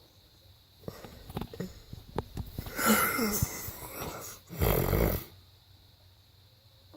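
A man snoring in his sleep: a few short clicks, then two loud snores about three and five seconds in.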